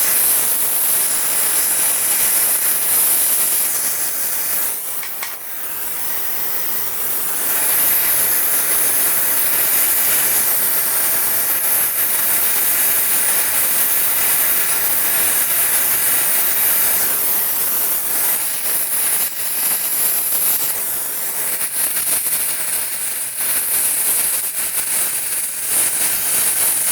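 Gas welding torch flame hissing steadily while a pipe joint is brazed with brass filler rod. The hiss dips briefly about five seconds in, then carries on.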